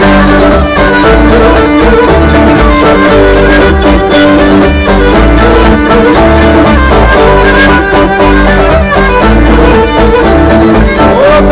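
Live, amplified Cretan folk dance music played instrumentally: a bowed string instrument carries the melody over plucked string accompaniment and a steady low beat.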